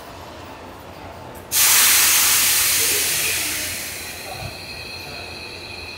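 A sudden loud hiss of compressed air venting from a Hankyu electric train's air system, starting about a second and a half in and fading over a couple of seconds. Faint steady high tones from the train carry on afterwards.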